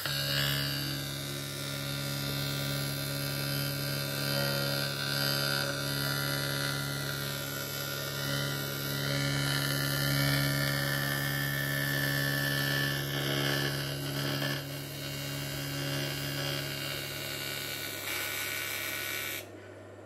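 TIG welding arc burning on a Mitsubishi Pajero cylinder head, a steady buzz with hiss, as the torch is run around the edges of a hole to show up any cracks running into the head. The arc cuts off sharply near the end, leaving a fainter hum.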